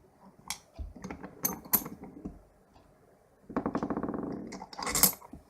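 A padlock being set into a bench vise and clamped: a few sharp metal clicks, a rapid rattling for about a second, then a loud metal clank about five seconds in.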